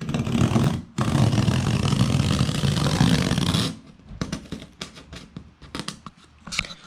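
Knife cutting along a cardboard shipping box, a loud scraping, ripping sound that stops briefly about a second in, then carries on until about halfway through. After that come scattered light clicks and rustles of the box being handled.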